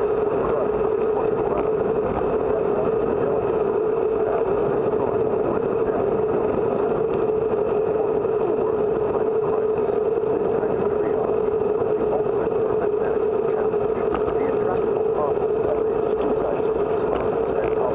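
Steady wind and road rush on a bicycle-mounted camera while riding, with a constant hum held at one pitch.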